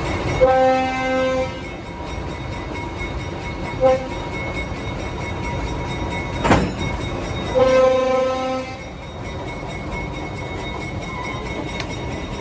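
GE diesel switcher locomotive's horn sounding two blasts, a short toot and one more long blast, the long-long-short-long pattern of a grade-crossing warning, over the steady rumble of the moving train. A single sharp knock about halfway through.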